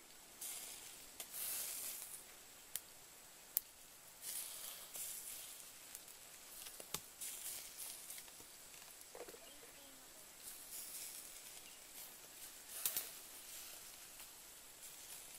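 Pieces of duck meat grilling over charcoal in a clay brazier: faint sizzling that comes and goes in patches, with a few sharp clicks now and then.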